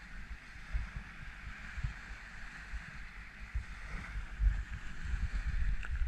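Small sea waves washing onto the shore, a steady hiss of surf. Gusts of wind buffet the microphone with an uneven low rumble, the loudest part of the sound.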